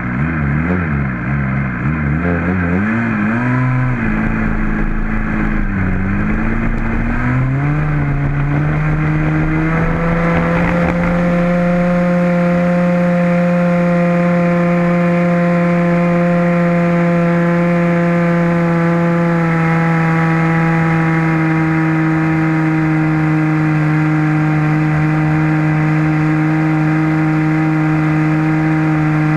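Radio-controlled model airplane's combustion engine running close to the camera. Its revs wander up and down for the first several seconds, then climb about eight seconds in to a steady, high-pitched buzz that holds at high throttle.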